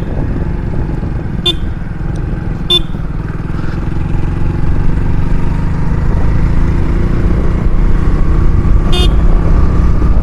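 100cc motorcycle engine running under way, its note climbing and getting louder from about four seconds in as the bike picks up speed. Three very short high beeps cut through it.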